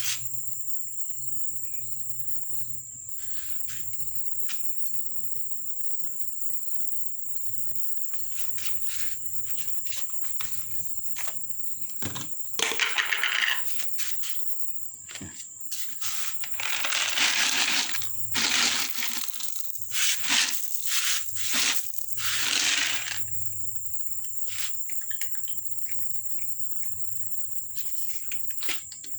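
Crickets chirring steadily in a high, thin drone. In the middle stretch, loud irregular rustling and crunching noises come in several bursts and then stop.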